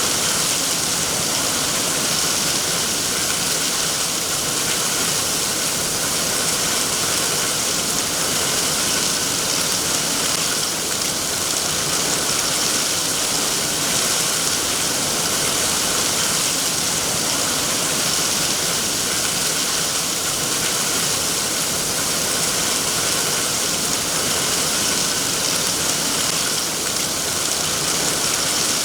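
Steady, even rain.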